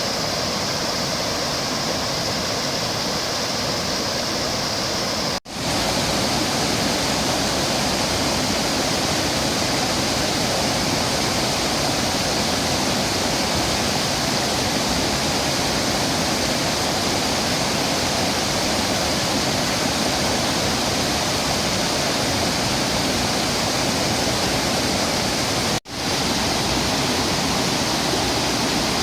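Steady rush of a low, wide waterfall pouring over rock. The sound drops out for an instant twice, about five seconds in and near the end, where the recording is cut.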